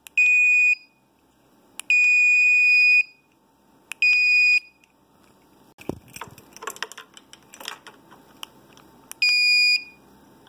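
A small electronic buzzer on a breadboard receiver circuit gives four steady, high-pitched beeps of uneven length, each under a second to about a second long. The beeps answer presses of the buttons on a learned EV1527 RF remote. Midway there is a low thump and some handling rustle.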